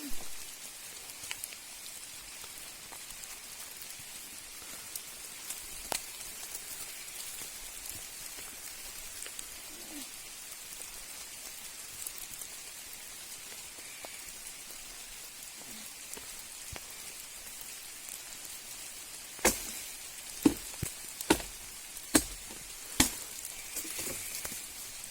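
Steady hiss of rain, with scattered faint ticks and a run of five sharp knocks near the end.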